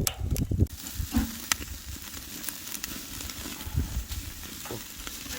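Meat sizzling on a grill over a wood and charcoal fire, with a steady hiss and occasional sharp pops and crackles from the burning wood.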